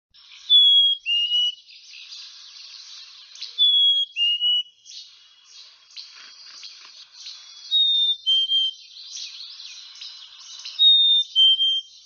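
Black-capped chickadee singing its two-note "fee-bee" song four times, each a clear whistle followed by a slightly lower one, over a faint, busy chattering background.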